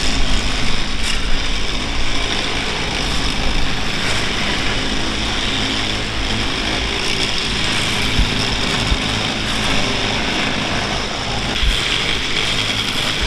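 Engine-driven track maintenance machinery running steadily: a continuous engine drone with a loud high hiss over it and a few short low knocks.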